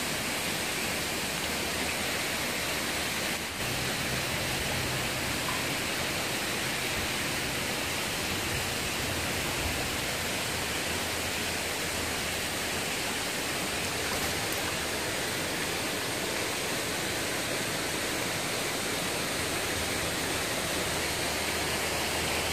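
Fast-flowing mountain stream rushing steadily over rocks and rapids.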